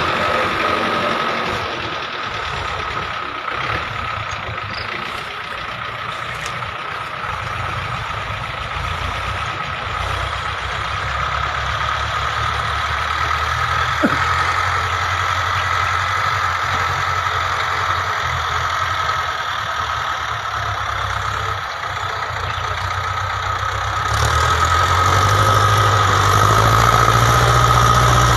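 Ford 6600 tractor's three-cylinder diesel engine running steadily while working a tilled field, heard at a distance, growing louder near the end as the tractor comes closer. A steady high-pitched hum runs over it.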